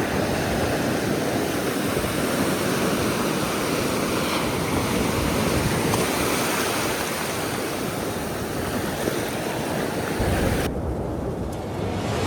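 Ocean surf washing steadily, mixed with wind. Near the end the sound turns to a duller low rumble.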